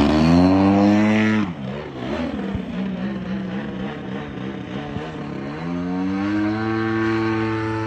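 Gas engine of an 85-inch RC aerobatic plane (DLE-61, a twin-cylinder two-stroke) revving up in flight, then throttled back sharply about a second and a half in. It runs at low idle with a wavering pitch, then throttles up again to a steady higher pitch about six seconds in.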